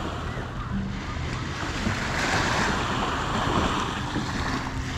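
Small waves washing on a sandy shore, with wind buffeting the microphone; the surf swells up about two seconds in.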